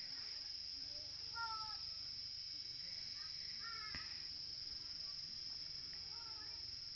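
Steady high-pitched insect chirring in the background, with a few short bird calls about a second and a half, three seconds and six seconds in, and a single click near the middle.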